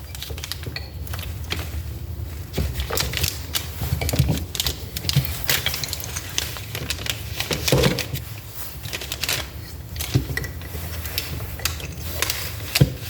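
Hand work on a Toyota 4A-FE distributor's small metal parts with hand tools: irregular light clicks and rattles, over a steady low hum.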